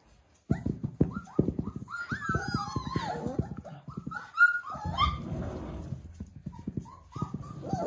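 Puppies yipping and whining as they play, their cries high and sliding in pitch, over a rapid clatter of clicks from claws on a tile floor. It starts suddenly about half a second in.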